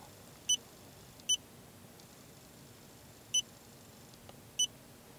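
Key beeps from an iCarSoft i990 handheld diagnostic scan tool as its buttons are pressed to scroll through the menu. There are about five short, high-pitched beeps, irregularly spaced, over faint background hiss.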